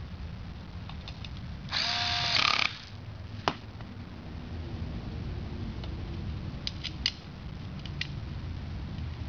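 Cordless drill-driver runs for about a second, driving a screw into the rail bracket hardware. A single sharp metal click follows, and a few light clicks come later as the rail and bracket are handled against the rack upright.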